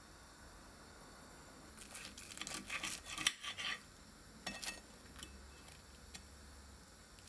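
Knife and fork cutting into crispy breaded fried chicken: about two seconds of dense crunching crackles from the crust, then a few single clicks of cutlery against the plate.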